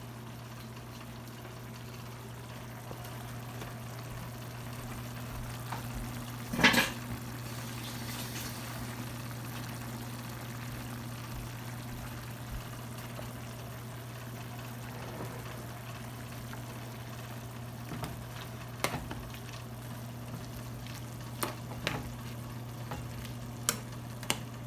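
Pan of chicken, onion, mushroom and tomato bubbling in its liquid with a steady hiss over a steady low hum. One loud sharp clink about seven seconds in, and a few shorter clinks near the end.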